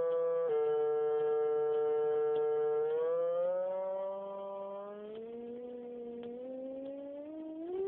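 FrSky Taranis transmitter's variometer sink tone. A continuous electronic tone glides down to a low steady pitch, holds for a couple of seconds, then slowly rises again, climbing faster near the end. An unbroken low tone like this signals descent, and the pitch drops lower for a faster sink rate.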